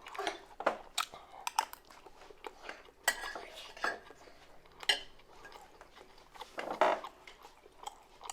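A fork clicking and scraping against a takeout food container, with chewing in between, during a last bite of a meal.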